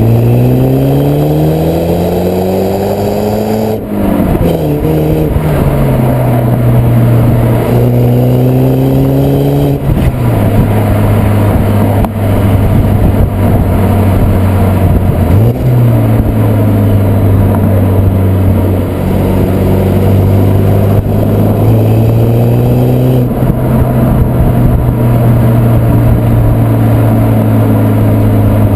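BMW E81 120i with its stock exhaust, the 2.0-litre four-cylinder engine accelerating, its pitch rising for about four seconds and then dropping suddenly at an upshift. It then runs at a steadier pitch, with further sudden drops at later shifts and a short blip of revs about halfway through.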